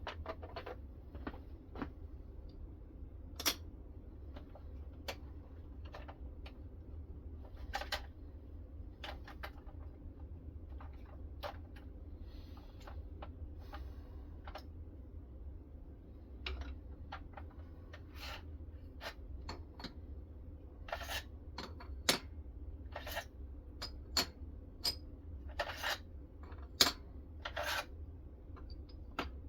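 Knife being sharpened on a guided rod sharpening system: irregular short strokes of an abrasive along the blade edge, with light clicks and scrapes that come more often in the second half.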